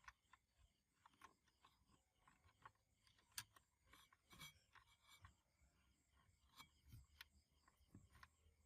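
Faint, scattered small clicks, taps and scraping, like hand work on small parts; the loudest is a sharp click about three and a half seconds in.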